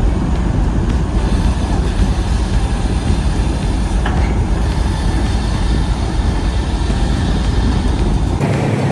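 Steady, loud running noise of a large vehicle: a deep rumble under a broad hiss. It cuts abruptly near the end to a different, smoother hum.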